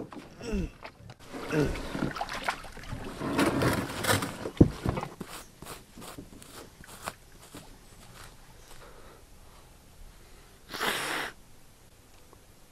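Commotion of a hooked fish being landed from a kayak: knocking and scuffling with short breathy vocal sounds at the start, a sharp knock and a string of clicks a few seconds in, and a brief rushing burst near the end.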